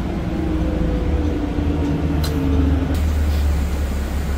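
City bus heard from inside the cabin: steady low engine and drivetrain rumble, with a whine that drops slightly in pitch and stops about three seconds in as the bus slows. A single short click about two seconds in.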